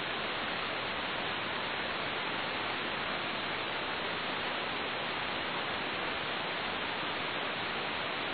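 Steady radio static hiss between air traffic control transmissions, with no voice on the frequency.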